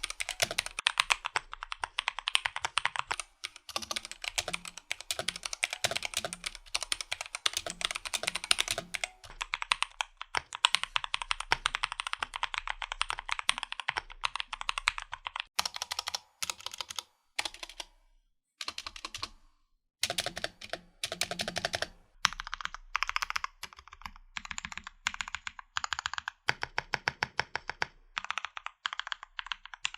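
Typing sound test on a Womier K61 mechanical keyboard with Drop Halo True switches and PBT keycaps: fast, continuous keystrokes with a few short pauses around the middle.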